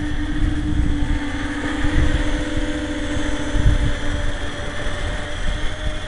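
RC tricopter's electric motors and propellers humming at a steady pitch, weakening about four seconds in, under heavy wind buffeting on the microphone.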